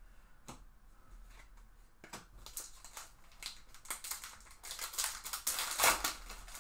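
Foil baseball card pack wrapper crinkling and tearing as it is ripped open, the rustle building to its loudest crinkle near the end.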